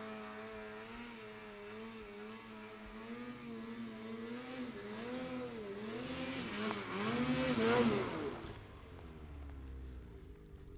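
A snowmobile engine revving unevenly, its pitch rising and falling again and again as the throttle is worked. It grows louder to a peak about eight seconds in, then drops back to a lower, steadier drone.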